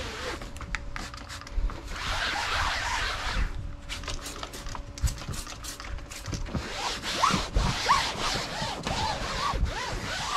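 Microfiber towel rubbing and wiping across vinyl boat-seat upholstery, working in a sprayed-on vinyl protectant: a scratchy rubbing with clicks, and short squeaks in the second half.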